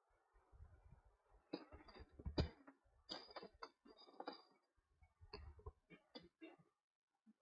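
Faint, irregular clicks, rustles and low thumps from handling and movement right next to the camera, with no speech.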